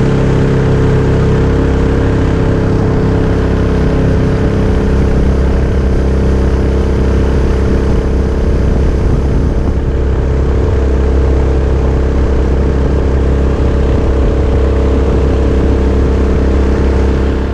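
A Mokai jet boat's Subaru EX21 single-cylinder four-stroke engine running at a steady speed through its water-cooled muffler, with an even, unchanging pitch.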